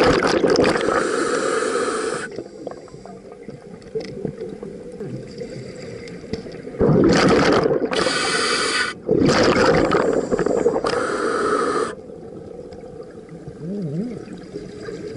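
Scuba diver breathing through a regulator underwater: loud bursts of exhaled bubbles at the start and again from about seven to twelve seconds in, with quieter stretches between.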